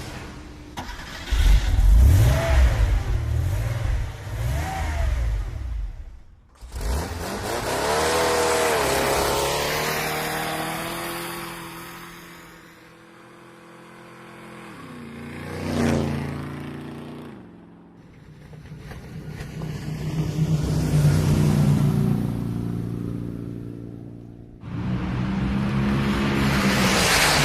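A car engine revving and running in several separate clips, its pitch gliding up and down. The level swells and fades slowly, as in an 8D audio effect that pans the sound around the listener.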